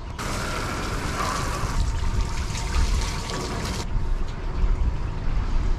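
Water spraying while a fish is being cleaned, a steady hiss that cuts off abruptly about four seconds in, over a low rumble of wind on the microphone.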